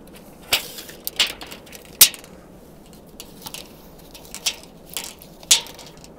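A tape measure being handled against a wooden post: a few scattered clicks and rustles, the sharpest about two seconds in.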